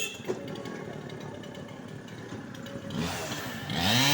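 A two-stroke chainsaw revving up about three seconds in, its pitch rising and falling with the throttle. Before that there is low background noise and a single knock just after the start.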